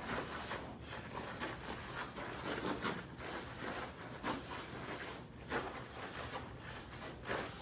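Two karateka running through a chain of kicks: a string of short, sharp sounds a little over once a second, the snap and swish of cotton gi, bare feet on foam mats and forceful exhalations with the kicks.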